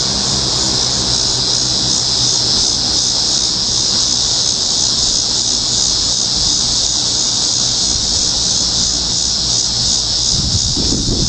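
1975 Lakewood P-223 box fan with its Westinghouse motor running steadily, the motor humming low under a loud, high, steady buzzing; the owner thinks the fan will probably need some oil. Near the end a breeze rushes over the microphone.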